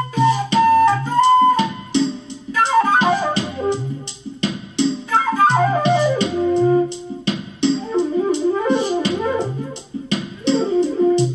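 Flute playing a melody with quick descending runs, over a backing track with a steady drum beat and a repeating bass line.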